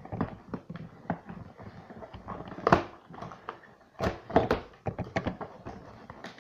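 A few sharp knocks and clicks among quieter rustling: objects being handled by hand.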